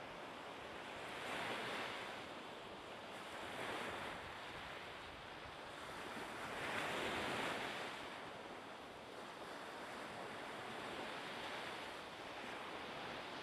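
Sea waves washing: a steady hiss of water that swells and fades three times, loudest about seven seconds in.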